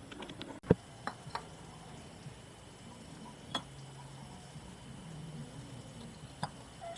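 A few sharp, separate knocks or taps, the loudest just under a second in and the others scattered through the rest.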